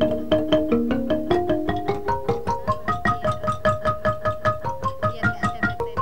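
Background music: a keyboard plays a quick, even run of notes, about five a second, stepping up and down in pitch.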